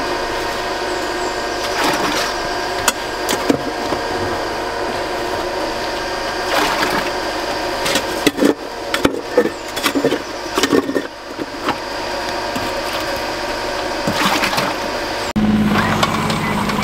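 A steady machine hum with scattered knocks and clatters from work on the pipe in a flooded hole, busiest a little past halfway. Near the end it cuts suddenly to the lower running note of a mini excavator's engine.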